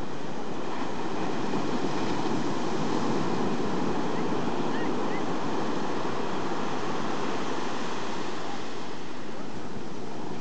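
Surf on the Arabian Sea: waves breaking and washing up a beach in a steady rush, swelling a little a couple of seconds in.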